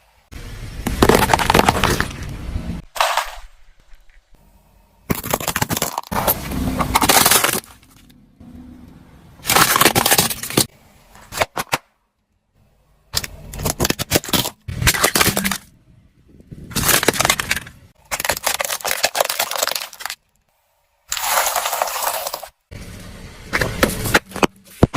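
Plastic toys cracking and breaking as a car's tyres roll over them: about eight separate bursts of crackling and snapping, each one to three seconds long, each starting and stopping abruptly.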